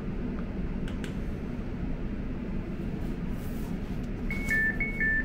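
Stationary train carriage's steady low hum with the doors open. About four seconds in, the door-closing warning starts: a rapid beeping that alternates between a high and a slightly lower pitch.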